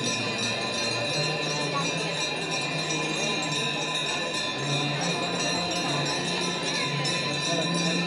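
Aarti bells ringing without pause over devotional singing with long held notes.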